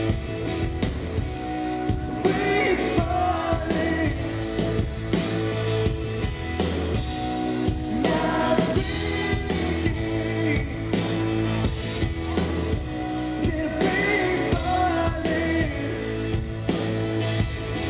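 Live rock band playing through a venue PA with a male singer's voice, heard from the floor of the room.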